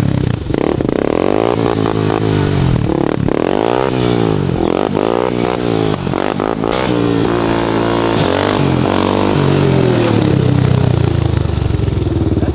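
Sport quad's engine revving up and down over and over as the rider holds wheelies, its pitch rising and falling every second or so with a few steadier stretches.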